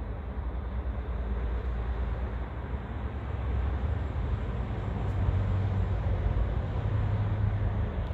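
Steady low mains hum and rushing water from the koi tank's pump and filtration running, growing louder about three and a half seconds in.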